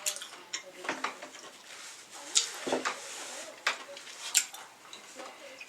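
King crab leg shells being cracked and picked apart by hand: a string of sharp, irregular cracks and clicks.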